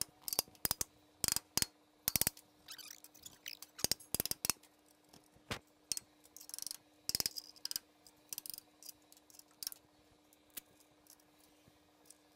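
Irregular metal clicks and clinks of hand tools and bolts being worked on a truck's transmission cross member and mount bracket, with a few short rattling bursts, the longest about seven seconds in.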